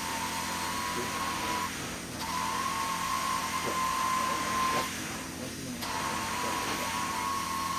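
Carpet-cleaning extraction wand drawing suction across carpet: a steady high whine over a loud rushing hiss. The sound breaks off twice, about two seconds in and again about five seconds in, between strokes.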